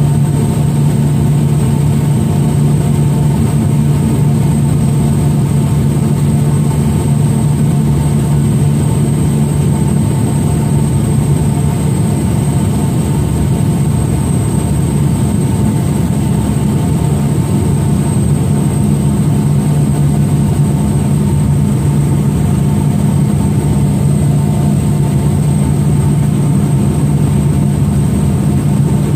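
Light aircraft's engine droning steadily, heard inside the cabin, with a thin steady high whine above the low drone.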